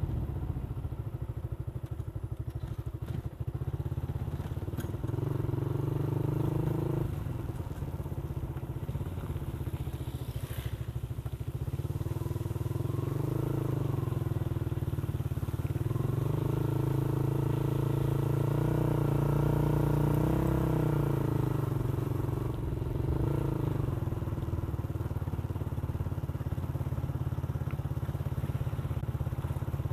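Motorcycle engine running under way, its pitch rising and falling several times as the rider speeds up and eases off, over a steady low rumble.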